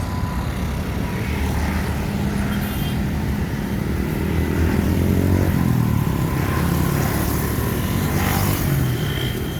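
Vehicle running close by: a steady low engine drone that swells slightly about five seconds in.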